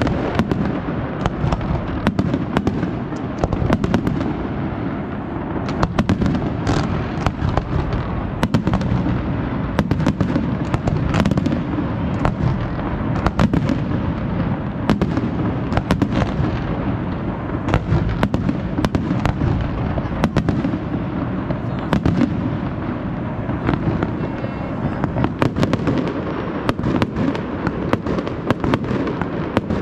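Fireworks display going off: aerial shells bursting in quick succession, a dense continuous run of bangs with many sharp cracks and pops and no pause.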